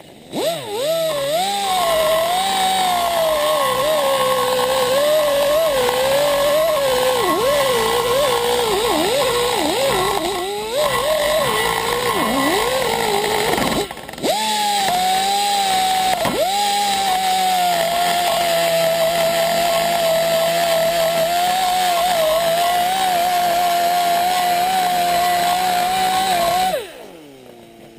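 Hand-held rotary grinder with a greased bit porting the exhaust port of an aluminium cylinder head. It is a high whine whose pitch wavers and sags as the bit bites into the metal, with brief dips about ten and fourteen seconds in. It then runs steadier and winds down near the end.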